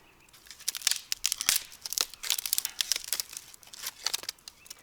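Dry crinkling and tearing with a quick run of sharp snaps, from about half a second in: paper and kindling being crumpled and broken to light a campfire.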